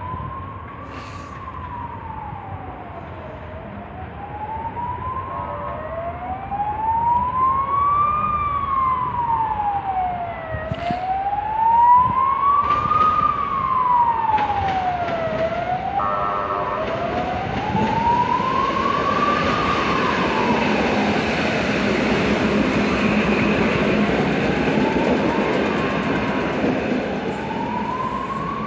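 A siren wailing slowly up and down, about one rise and fall every five seconds. From about halfway, the rumble and rattle of a red EN57 electric multiple unit approaching and passing on the near track grows loud under it.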